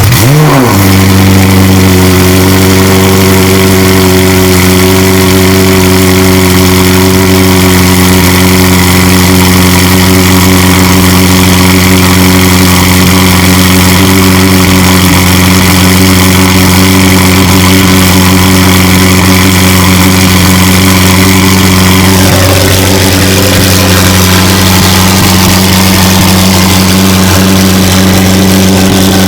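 McLaren 720S twin-turbo V8 through catless downpipes and a straight-pipe exhaust, idling loudly at one steady pitch after a brief rise in revs at the start.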